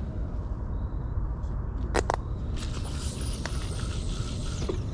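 Cast with a spinning reel and heavy carp/catfish rod: two sharp clicks about two seconds in, then line hissing off the spool for about two seconds, and a click near the end. A steady low rumble runs underneath.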